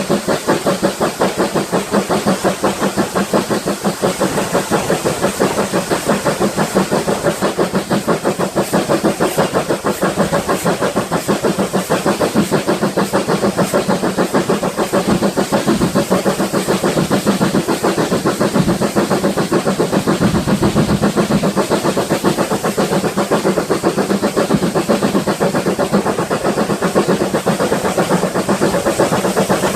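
GWR 5600 class 0-6-2 tank locomotive No. 5619 under steam, its exhaust chuffing in an even, rapid rhythm of about three beats a second.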